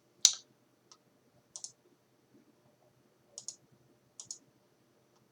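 Computer mouse clicking: one sharp click just after the start, a faint one, then three quick double clicks spread over the next few seconds.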